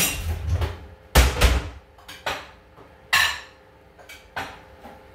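Dishes and kitchen utensils clattering: five separate knocks and scrapes, the loudest about a second in.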